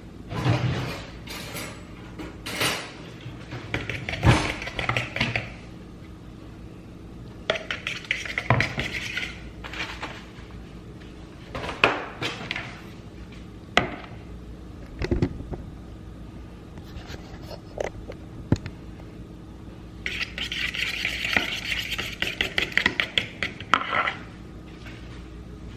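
Dishes, pans and utensils clattering in a kitchen as a string of separate clinks and knocks, with a few seconds of rapid rattling near the end.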